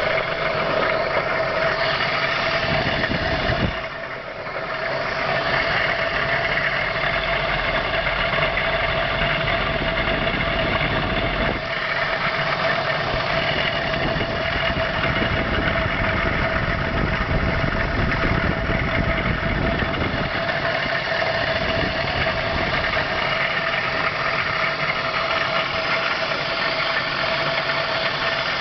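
BMW engine running with a steady whining tone over it, the noise the owner calls weird. It dips briefly about four seconds in.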